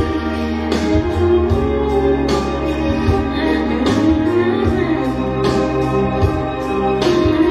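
Recorded music playing: sustained keyboard chords with a light percussive hit recurring about every second and a half.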